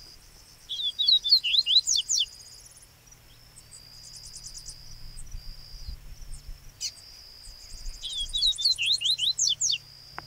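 Yellow-bellied seedeater (coleiro-baiano) singing: two loud bouts of song, each a quick run of sharp notes sliding downward, about a second in and again near the end. A steady high insect drone runs underneath.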